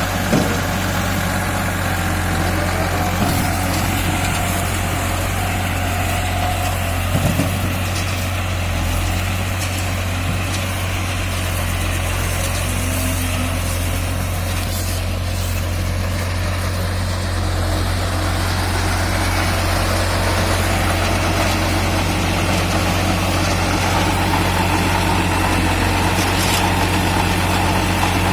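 An engine idling steadily with a strong low hum, with a few brief knocks about seven seconds in.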